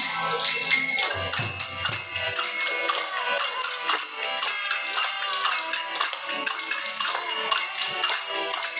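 Devotional kirtan music with fast, jingling hand cymbals keeping a steady beat.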